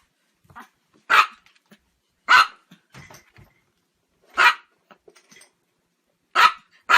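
A dog barking in loud single barks, five of them at uneven gaps of one to two seconds, the last two close together, with softer short sounds between.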